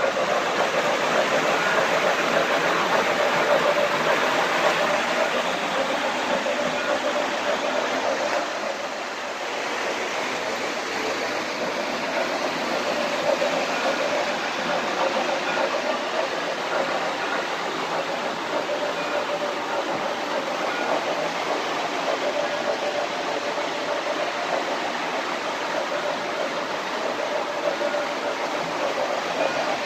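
O-gauge model trains running on their track, a steady rumble and clatter of wheels and motors that dips briefly about nine seconds in.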